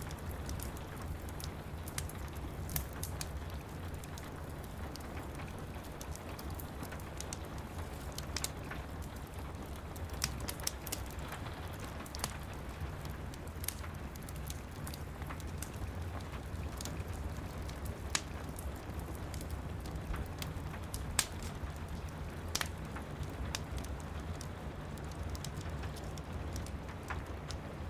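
Steady rain with a low rumble underneath, and a wood fire crackling with scattered sharp pops, a few louder than the rest.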